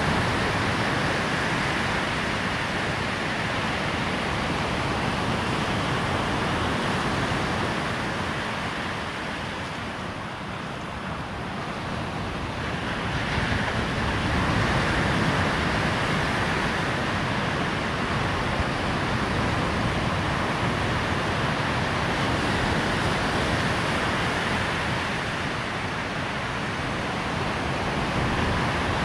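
Waves breaking on a beach: a continuous rush of surf that eases for a few seconds near the middle and then builds again, with a low rumble underneath.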